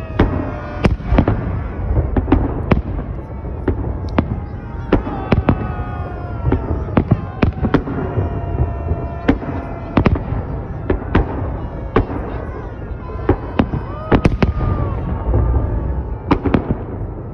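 Fireworks display: aerial shells bursting in a run of sharp bangs, sometimes several in quick succession, over a continuous low rumble.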